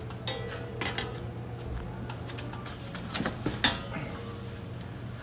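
Snap-off utility knife blade cutting through two overlapping layers of vinyl wallpaper, a string of short scraping clicks, the loudest about three and a half seconds in.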